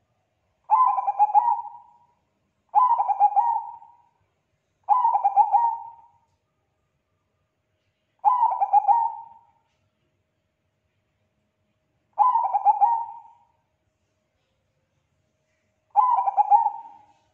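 Zebra dove (Bangkok-type perkutut) cooing: six short phrases, each a quick run of pulsed coo notes that trails off, repeated every few seconds.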